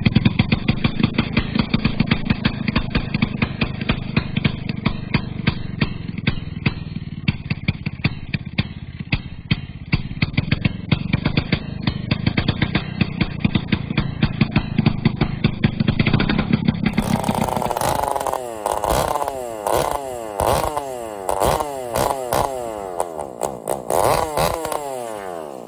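Pioneer P41 66 cc two-stroke chainsaw engine running with no muffler fitted, on its first run after a rebuild. It runs steadily with a fast rattle of firing strokes. About two-thirds of the way in it is revved up and down several times, the pitch rising and falling with each rev.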